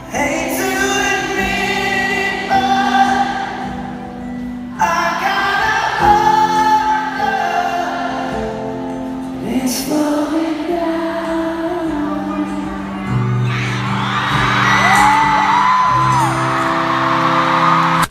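Live pop concert music with singing, recorded in a large arena, changing abruptly twice between short clips. A crowd screams and cheers over the music near the end.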